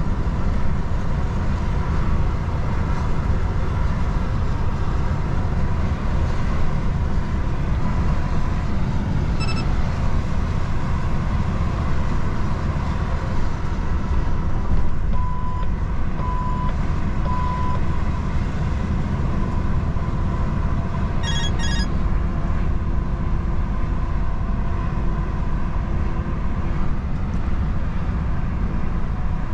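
DAF XF truck driving along: a steady drone of engine and road rumble. About halfway through, three short beeps sound in a row.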